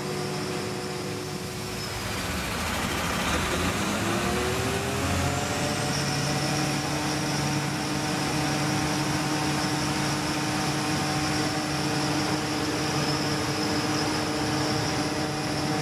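Engine-driven Metax MP7 high-pressure plunger pump unit running under load, a steady drone with a high whine. About two seconds in, as the transmission shifts up a gear, the pitch dips and then climbs over a few seconds before settling at a higher, steady speed as the pump's flow rises.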